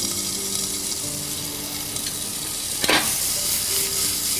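Mung beans in butter and lamb sizzling steadily in small stainless-steel saucepans, with a single metal clink of a spoon against a pan about three seconds in as the food is stirred.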